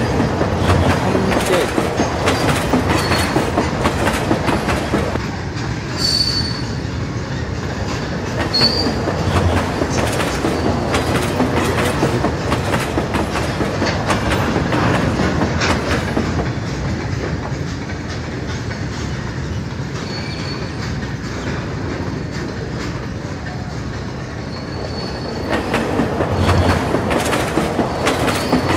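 Freight train wagons rolling past, their wheels clacking over the rail joints in a steady run, with a few brief high wheel squeals.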